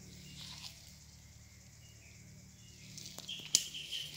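Birds chirping faintly, then, about three seconds in, leaves and undergrowth rustling and footsteps on leaf litter, with one sharp click that is the loudest sound.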